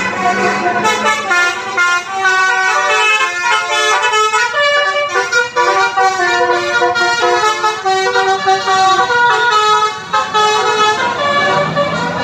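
Telolet basuri musical air horn on a bus playing a melody: steady horn notes stepping from pitch to pitch, several sounding at once. The tune begins about a second in and ends near the end, with a low rumble at the start and finish.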